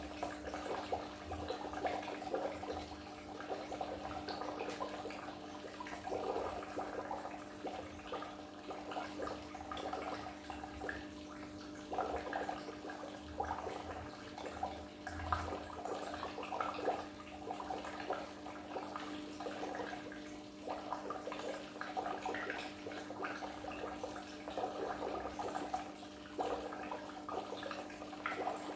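Goldfish aquarium water splashing and bubbling without a break, over a steady low hum.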